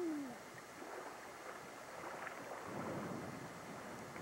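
Wind and lake water rushing past a canoe under sail: an even rushing hiss of wind on the microphone and choppy water along the hull, swelling slightly about three seconds in.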